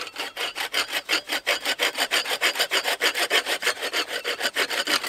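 MFH folding bow saw cutting through a thin wooden branch with rapid, even back-and-forth strokes. It cuts easily, "like butter", and the strokes stop right at the end as the branch is sawn through.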